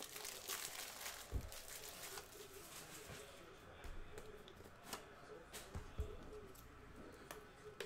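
Faint handling of trading cards and plastic top loaders: light rustling and scattered small clicks, with a couple of soft thumps about a second and a half in and again about six seconds in.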